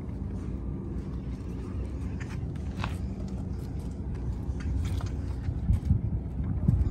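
Wind noise on the microphone, a low steady rush that gusts louder near the end, with a few faint clicks.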